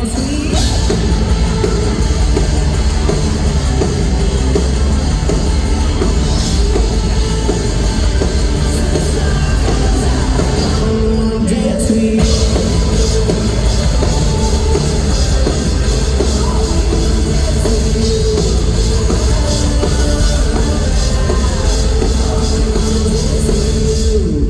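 Live pop-rock band playing loudly through an arena PA: drum kit, bass and guitars with a lead vocal, heard from the audience. The band thins out for a moment about eleven seconds in, then comes back in full.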